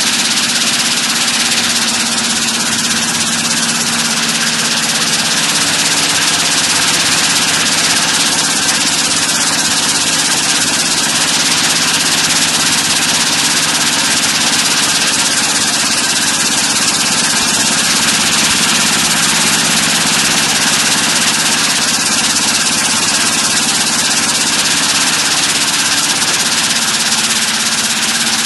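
Vertical spiral vibrating elevator running: a loud, steady mechanical hum with a dense hiss over it.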